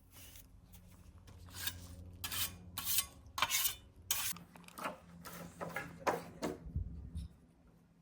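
A series of short, irregular scraping strokes of a concrete worker's hand tool working against freshly poured concrete.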